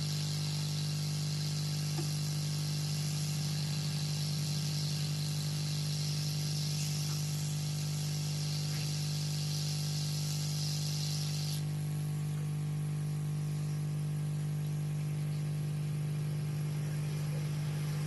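Hot-air rework gun blowing onto the phone's circuit board to melt the solder under a new charging socket: a steady hum with an airy hiss over it. The hiss cuts off suddenly about two-thirds of the way through while the hum carries on.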